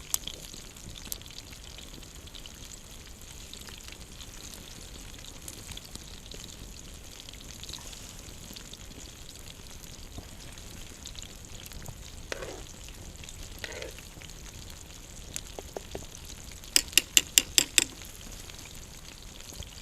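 Campfire burning with a steady hiss and scattered small pops. Near the end comes a quick run of about six sharp knocks, the loudest sound.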